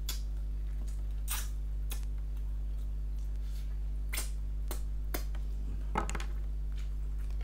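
Close-up mukbang eating sounds of mutton biryani eaten by hand: irregular wet smacks and clicks of lips and chewing, the sharpest about six seconds in, over a steady low hum.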